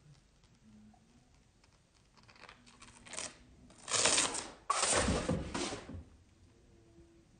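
Rustling and scraping noise, loudest for about two seconds in the middle, with a sudden louder jump about halfway through.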